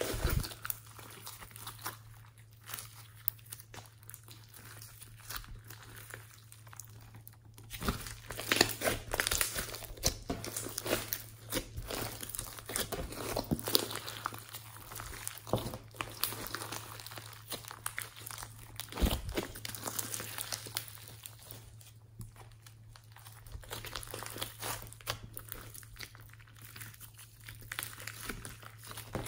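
Hands squishing, stretching and pressing a large mass of sticky slime mixed with foam beads: irregular wet clicks, pops and crackles, busiest through the middle.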